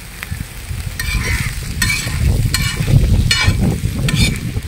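A metal spatula scrapes and stirs chopped onions, green chillies and ginger-garlic paste in oil in a wide iron pan, with a scrape about once a second over a steady frying sizzle. A low rumble runs beneath it.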